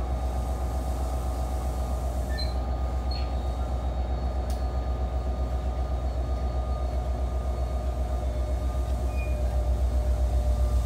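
An NJ Transit commuter train's diesel locomotive runs alongside the platform. It makes a steady low rumble with an even, rapid pulse, which grows a little louder near the end.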